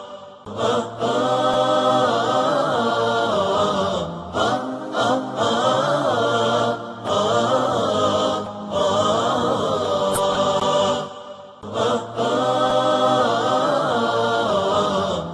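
Wordless a cappella vocal humming in the style of nasheed 'aahat': layered voices hold long, slowly gliding notes like a choir, with no instruments. The phrases are a few seconds long, with brief breaks between them.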